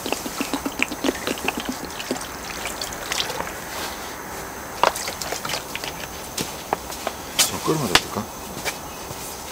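Water glugging out of a plastic bottle as it is poured into a cast-iron pot-lid pan of kimchi, a quick run of gurgles over the first couple of seconds. Then scattered sharp clicks and knocks, and a brief sliding voice-like sound near the end.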